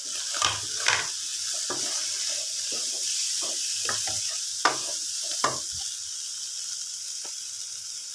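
Chopped vegetables and shredded chicken sizzling steadily in an oiled wok while a wooden spatula stirs and scrapes them, with a few sharp knocks of the spatula against the pan.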